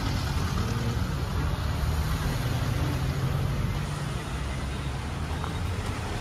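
A motor vehicle's engine running steadily, a low hum under street noise.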